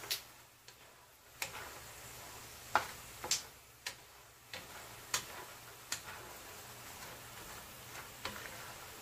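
Wooden spatula stirring peanuts in a frying pan of oil: irregular light clicks and taps of the spatula and nuts knocking against the pan.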